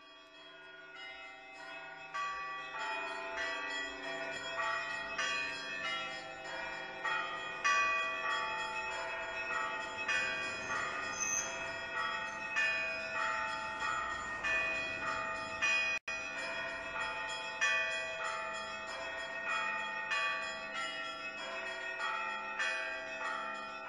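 Bells ringing in a continuous peal of many overlapping struck, ringing tones, fading in over the first couple of seconds.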